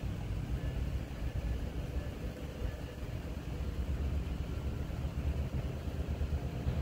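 Double-stack intermodal container train rolling past: a steady low rumble of freight cars' wheels on the rails.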